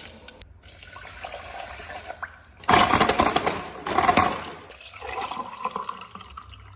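Liquid sloshing and gurgling, with two louder surges about three and four seconds in.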